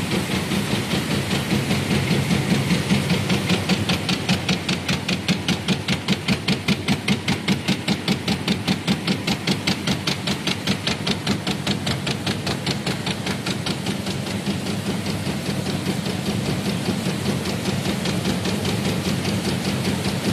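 Paper cup fan roll die punching machine with inline flexo printing running at production speed. A rapid, even beat of punching strokes sits over a steady machine hum, and the beat is clearest in the middle.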